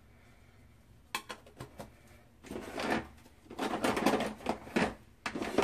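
Small plastic makeup containers being handled on a table: a few light clicks, then rustling clatter, and a sharp knock near the end.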